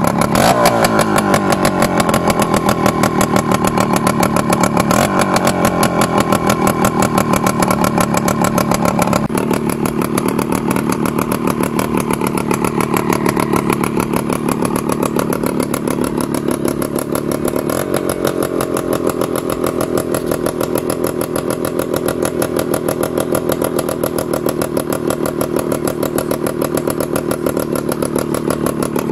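Yamaha RS 100's single-cylinder two-stroke engine running and being revved, its pitch dropping off a rev in the first second and rising and falling again later. The sound changes abruptly about nine seconds in.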